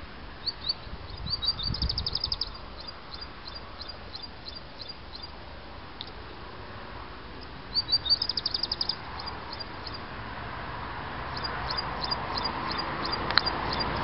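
A small songbird singing three phrases of high notes. Each phrase starts as a quick run that speeds into a rapid trill, then trails off in spaced single notes. Behind it is a steady hiss that grows louder near the end.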